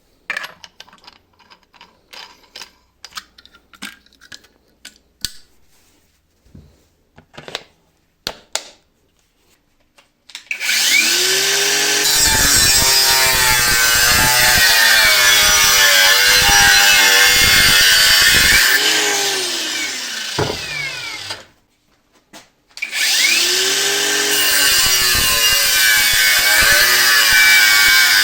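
Handling clicks and knocks, then a power tool cutting in two long runs about a second apart. Its motor pitch wavers and bends under load over a loud hiss.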